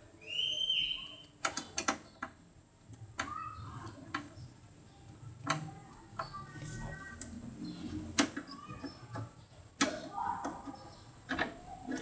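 Scattered clicks, taps and knocks from a plastic-and-metal desktop computer case being handled and worked on with a screwdriver, with a brief high squeak just after the start.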